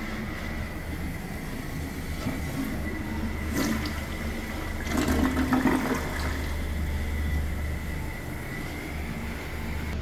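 Dual-flush toilet flushing: water rushing and swirling down the bowl, with louder gurgles about three and a half seconds in and again from five to six seconds, over a thin steady whistle.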